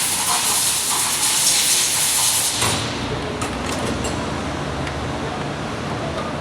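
A steady, loud hiss that turns duller, with a low hum under it, about two and a half seconds in.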